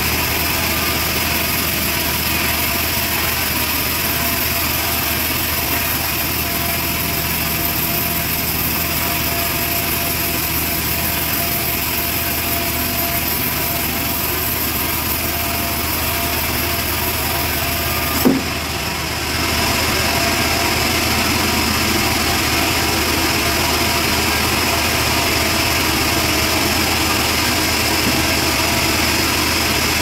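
Homemade band sawmill running steadily as its blade rips lengthwise through a trembesi (rain tree) beam. A single sharp knock comes about eighteen seconds in, followed by a brief dip before the steady cutting sound resumes.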